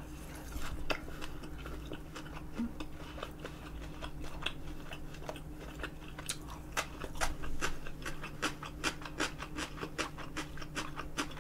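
A person chewing food, with sparse mouth clicks at first, then a steady run of crisp crunches, about three a second, from about halfway as a slice of yellow pickled radish is bitten and chewed. A faint steady hum lies underneath.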